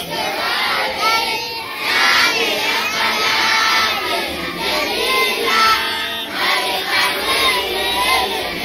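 A large crowd of schoolchildren's voices, many shouting at once, loud and continuous.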